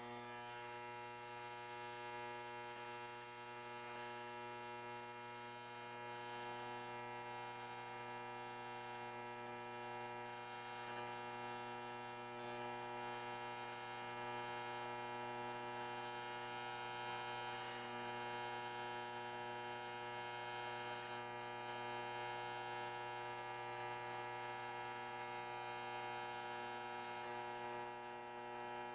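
Electric motor running at a constant speed: an even hum with a high hiss, its pitch unchanging throughout.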